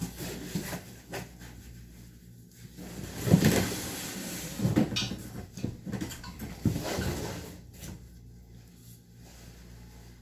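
Intermittent knocks, clunks and scraping as parts and tools are handled during a toilet install, the loudest knock about three seconds in.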